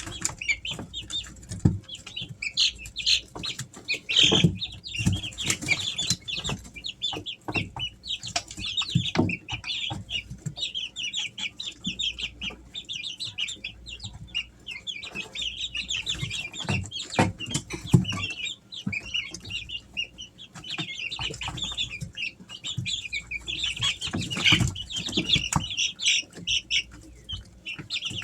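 A brood of three-week-old Easter Egger chicks peeping continuously, many short high chirps overlapping, with a few sharp knocks or scratches mixed in.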